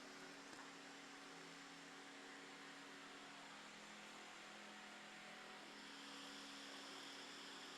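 Ceiling fan running, faint and steady: a low electric motor hum under a soft hiss of moving air, the hiss growing slightly near the end.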